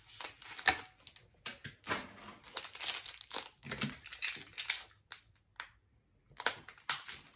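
Foil Pokémon trading-card booster pack crinkling in short, irregular rustles as it is handled and slit open with a utility knife, with a pause of about a second near the end.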